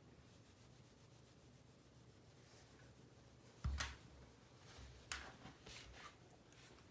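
A hand rubbing a long-haired dog's fur right at the microphone: faint, soft rustling. About halfway through there is a dull thump, followed by a few sharper rustles.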